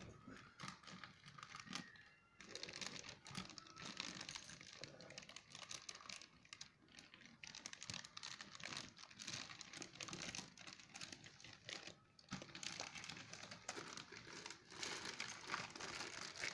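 Clear plastic packaging bag crinkling as a new mixer grinder is handled inside it: a quiet, continuous run of fine crackles with short pauses about two seconds in and again around twelve seconds.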